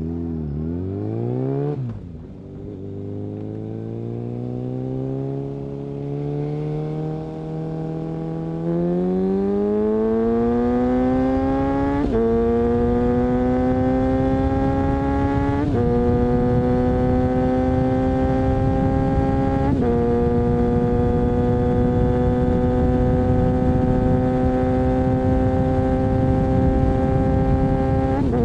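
Suzuki Bandit 650 inline-four with a Mivv aftermarket exhaust, under way. Engine speed falls over the first two seconds, then it pulls up through the gears, with quick upshifts at about twelve, sixteen and twenty seconds in, and settles into a near-steady cruise.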